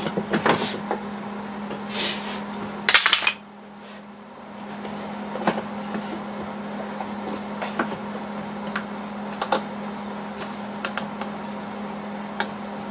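Clamps being handled and set on a wooden board: a cluster of sharp knocks and clatter in the first three seconds, with two louder hits near the end of it, then after a sudden drop, scattered single clicks as one-handed bar clamps are squeezed tight. A steady low hum runs underneath.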